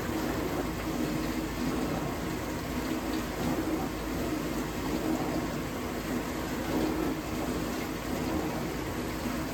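Vintage dishwasher running a wash cycle: a steady pump-motor hum under water rushing and spraying inside the tub. The owner suspects the pump is restricted, possibly from a cracked gasket, since the water no longer seems to hit the tub at full force.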